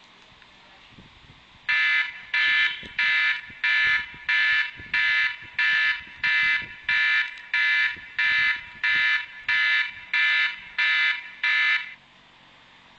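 iPod touch 3rd-generation's Clock-app alarm tone sounding through its built-in speaker. It is a fast train of ringing electronic beeps, about one and a half a second, that starts nearly two seconds in and stops near the end. The alarm plays through the onboard speaker even though music and games no longer do.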